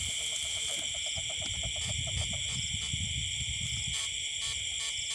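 Night-time rice-paddy chorus: insects trill steadily and high, and a frog calls in a rapid series of short pulses, about six a second, that stops about halfway through. Low rustling noise from movement in wet grass runs underneath, strongest around the middle.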